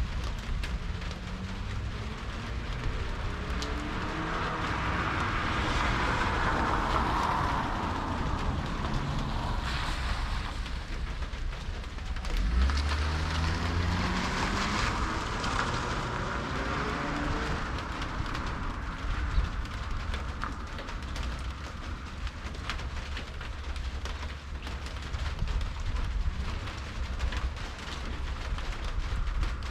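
Cars passing on a rain-wet street, their engine and tyre noise swelling and fading twice, about five seconds in and again about thirteen seconds in. A steady low rumble runs underneath.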